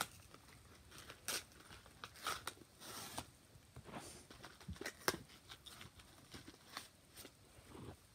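Plastic packaging handled at close range, likely a pack of press-on nails: irregular crinkles, crackles and small clicks.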